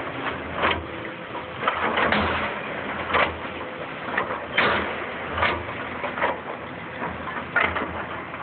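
Excavator working demolition rubble: its engine running steadily underneath, with irregular crashes and clanks of brick and debris about once a second.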